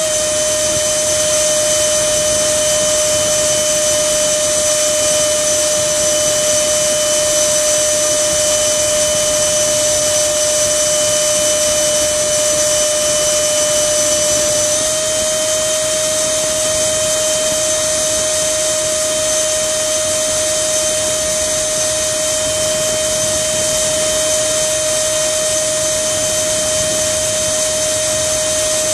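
Electric ducted fan of an RC plane, a 64 mm unit with a 4200 kV motor, running with a steady high whine and a rushing hiss. Its pitch steps up slightly about halfway through.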